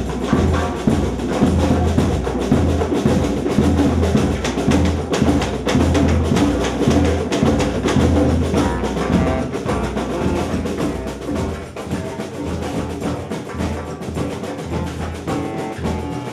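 Percussion-led music with a steady drum beat and dense, rapid hand-drum strikes; the low drum pulse drops away about two thirds of the way through.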